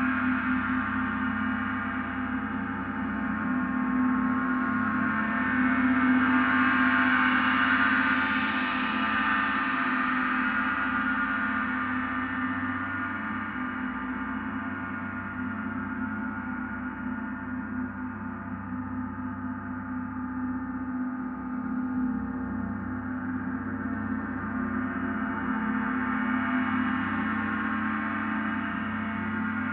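Large hanging gong played continuously with soft felt-headed mallets: a sustained wash of many overlapping tones with no distinct strikes, swelling louder about a third of the way in and again near the end.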